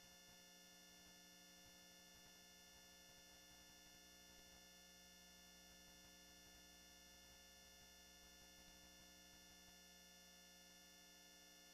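Near silence: only a faint, steady electrical hum.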